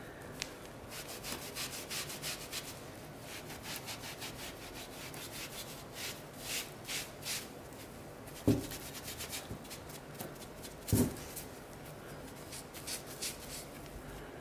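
Damp sponge rubbing over a freshly grouted mosaic and the edges of its wooden base in short repeated strokes, wiping away the excess grout. Two knocks break in, one past the middle and another a few seconds later.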